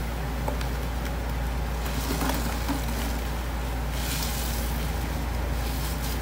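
Gloved hands squeezing and kneading a sponge in thick paste made from blue detergent and cleaning powder, giving soft wet squishing and crackling, over a steady low hum.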